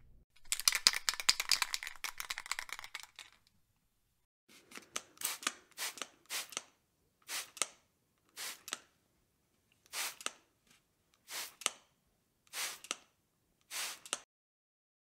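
Aerosol can of Gorilla spray adhesive shaken for about three seconds, its mixing ball rattling. After a pause it is sprayed in a series of short hisses, about one a second, some in quick pairs.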